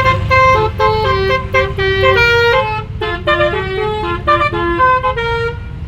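Basuri melody horn on a vehicle playing a quick tune of short notes stepping up and down in pitch, over a steady low engine rumble. The tune stops shortly before the end, leaving the rumble.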